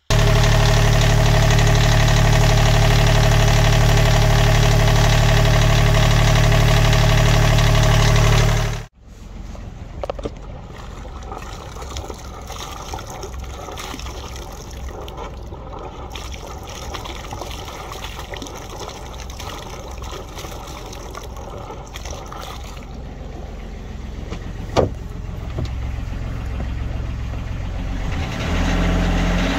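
Volvo Penta MD2030B three-cylinder marine diesel running steadily, heard up close in the engine compartment. After a sudden cut about nine seconds in it is heard more quietly from outside the hull, with the splash of cooling water pouring from the exhaust outlet, a sign that the raw water pump, just fitted with a new seal, is pumping. One sharp knock comes near the end.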